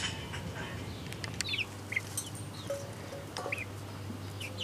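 Young chickens peeping: scattered short, high chirps, several a second.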